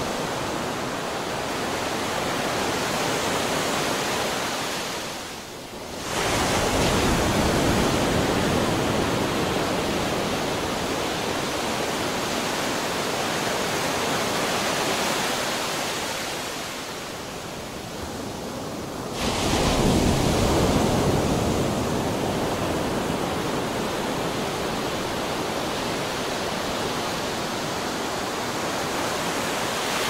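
Ocean surf: a steady wash of waves, with a wave breaking about six seconds in and another about twenty seconds in.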